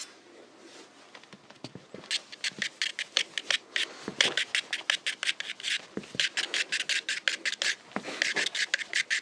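Shaving brush scrubbing lather onto a man's face in quick, scratchy strokes, about five a second, starting about two seconds in with brief breaks.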